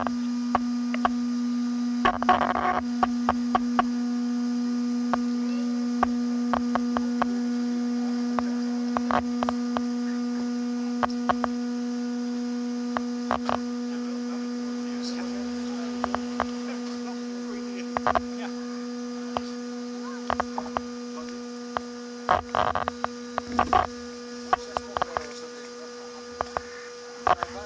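Steady electric hum at one low pitch with overtones, slowly fading, from a drone caught in a tree after a crash. Scattered light clicks and ticks sound over it.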